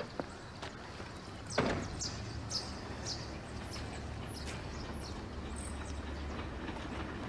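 Outdoor background noise: a steady low rumble, with a sharp knock about a second and a half in and a run of short, high squeaks over the next few seconds.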